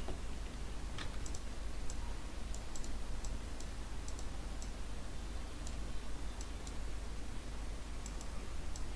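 Scattered light clicks of a computer mouse and keyboard, some in quick pairs, over a steady low hum.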